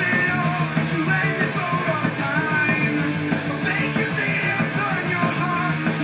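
Heavy stoner-metal rock music with a vocal line over steady low bass notes.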